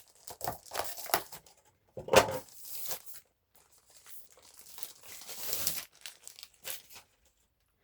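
Packaging crinkling and rustling in irregular bursts as an accessory is handled and unwrapped, loudest about two seconds in and again in a longer stretch a little past the middle.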